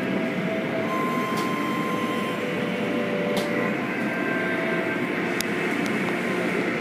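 Automatic car wash heard from inside the car: spinning cloth brushes and water spray beating against the car's body and windows, a steady rumbling wash noise with a few sharp ticks.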